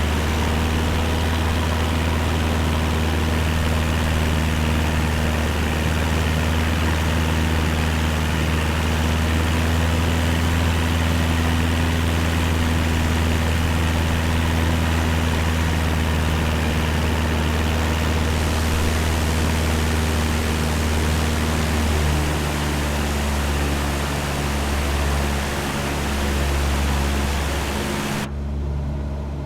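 Cessna 172's piston engine and propeller droning steadily in flight, a low engine hum under a broad hiss. Near the end the hiss drops away suddenly, leaving the low drone.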